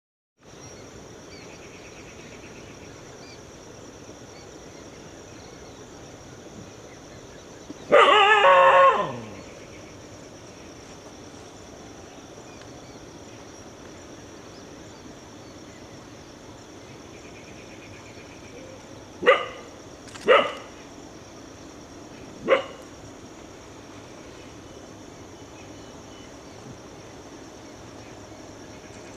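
An animal gives one loud, harsh call lasting about a second, dropping in pitch at the end, then three short sharp calls some ten seconds later, over a steady hiss.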